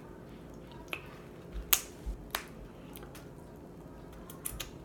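Crab leg shell being cracked and snapped apart by hand: a few sharp cracks, the loudest a little under two seconds in.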